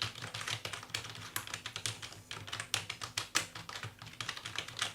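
Logitech K375s wireless keyboard being typed on, a quick irregular patter of key clicks; its deep-travel keys are somewhat noisy.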